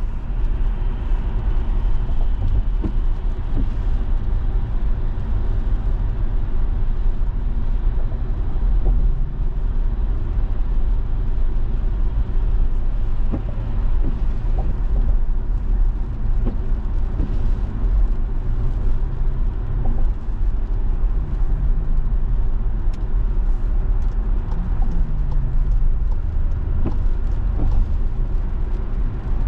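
Car driving on a wet highway, heard from inside the cabin: a steady low rumble of engine and tyres with road hiss, and a few faint ticks.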